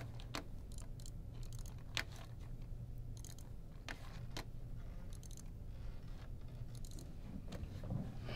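Scattered small sharp clicks and brief crackly ticks, a few seconds apart and irregular, over a steady low room hum.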